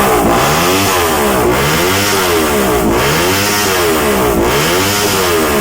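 Motorstar Z200 motorcycle with an aftermarket SC Project GP-type canister, revved up and let fall about four times in a row. The exhaust is very loud, with no silencer insert in the canister.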